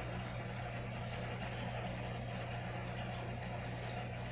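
Steady low hum with a faint hiss behind it, unchanging throughout.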